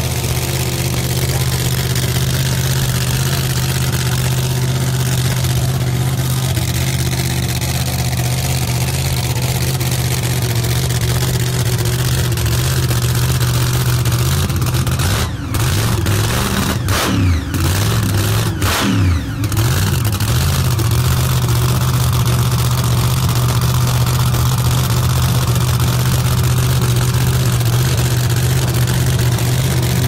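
Drag-racing truck's engine idling loudly and steadily, revved up and down several times about halfway through before settling back to idle.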